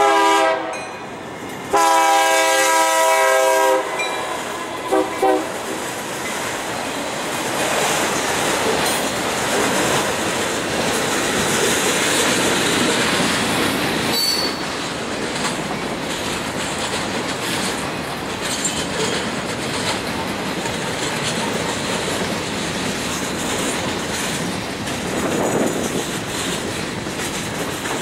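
Freight locomotive air horn blowing a short blast, a long blast, then two quick toots, followed by the train rolling past with a steady rumble of wheels on the rails and a brief wheel squeal.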